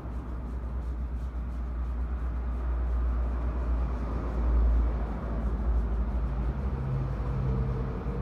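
Low, steady rumble of vehicle traffic, with a motor hum coming in near the end.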